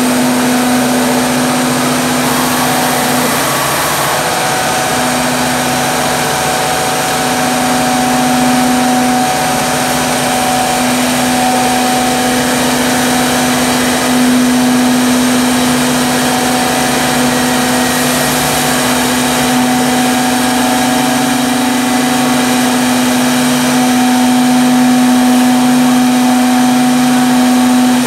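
Router spindles of a multi-head CNC mortising machine running steadily while their bits cut curved slots into wooden rails, a loud constant whine and hum. In the second half a lower tone pulses on and off about once a second.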